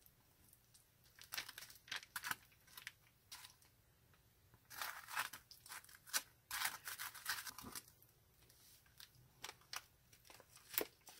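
Metal palette knife scraping and smearing thick acrylic paint across a cardboard palette, in groups of short scraping strokes with pauses between.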